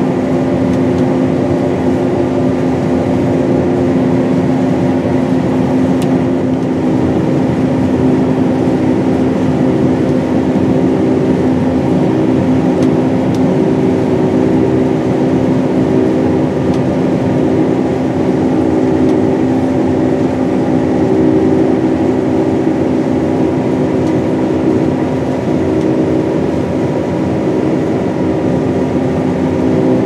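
John Deere S790 combine running steadily while harvesting soybeans, heard from inside the cab: a constant machine drone with a steady hum of several tones.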